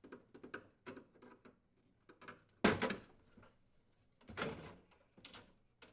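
Plastic clicks and knocks as the KitchenAid refrigerator's water reservoir access panel is pried down off its mounting posts with a flathead screwdriver, with two louder clunks about two and a half and four and a half seconds in.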